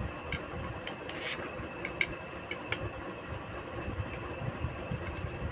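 Screwdriver tightening the screws of an RO booster pump's new head: a few faint clicks and a short scrape about a second in, over a steady background hum.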